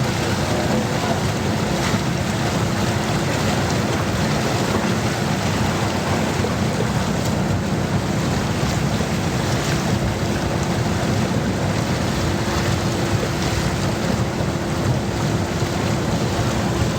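Small outboard motor of a Li River bamboo raft running steadily, a low even hum under a wash of water and wind noise.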